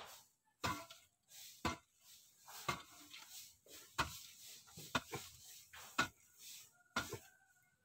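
A hand blade chopping into packed soil, striking about once a second with a short scrape and crumble of loosened earth after each blow, as a hole is dug by hand.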